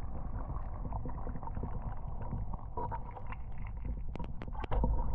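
Kayak moving through shallow creek water, heard muffled from below the waterline: a steady low rush of water with many small clicks, a few sharper knocks about four seconds in, and the low rumble getting louder near the end.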